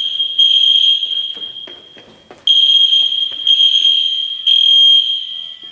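School fire alarm sounding a loud, high-pitched tone in groups of three beeps with a short pause between groups, the three-pulse evacuation pattern.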